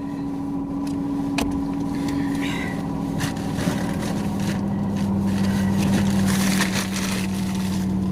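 Van engine idling, heard from inside the cab: a steady hum that settles to a slightly lower pitch about three and a half seconds in. A single click comes about a second and a half in.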